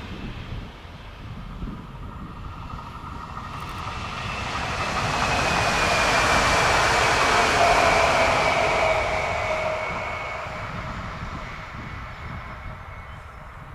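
Electric multiple-unit passenger train, a Stadler FLIRT, passing on the line. It swells to its loudest about halfway through, then fades as it runs away. Under the rumble of wheels on rail, faint whining tones sink slightly in pitch.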